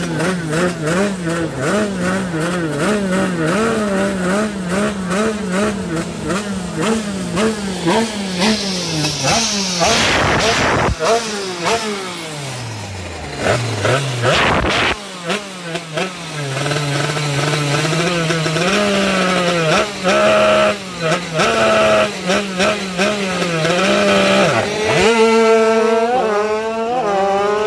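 Drag-racing motorcycle engine revved in repeated short throttle blips, with a loud hissing burst of spinning tyre about ten seconds in during the burnout. At the start line it is blipped again, then near the end the engine note climbs sharply as the bikes launch.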